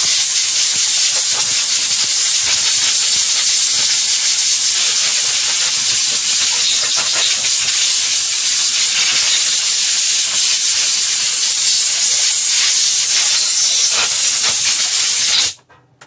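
Compressed-air blow gun hissing steadily as it blows accumulated dust out of a dismantled table fan's motor. It cuts off shortly before the end.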